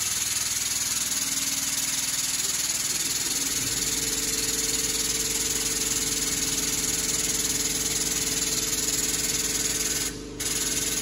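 Powered shop press running with a steady hiss. About three and a half seconds in, a lower steady hum joins it as the ram bears down on a bent steel link to press it straight. The hiss drops out briefly near the end.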